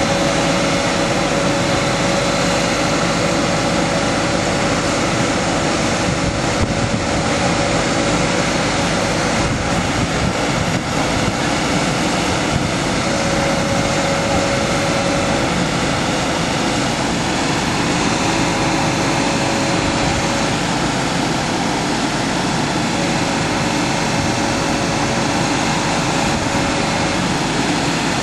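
Truck-mounted sprayer running while the truck stands still: a steady, loud mechanical noise with a thin whine that fades in and out several times.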